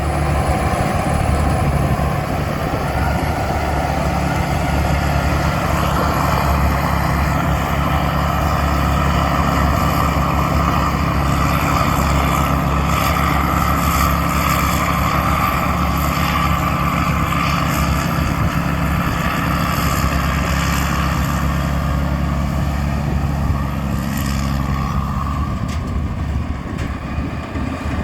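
Tamco rice combine harvester's Isuzu diesel engine running steadily under load, with a steady whine over the engine note. The engine note eases and drops near the end.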